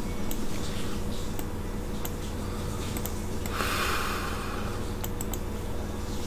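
Sparse, irregular clicks of a computer mouse over a low steady hum, with a short breathy hiss about three and a half seconds in.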